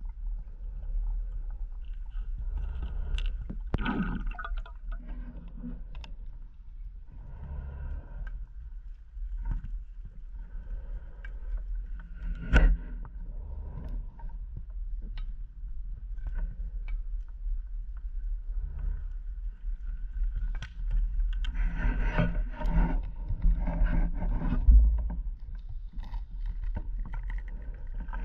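Underwater scuba breathing heard through a camera housing: a diver's regulator hissing on each breath, with bursts of exhaled bubbles every few seconds over a low rumble. A sharp knock comes about halfway through.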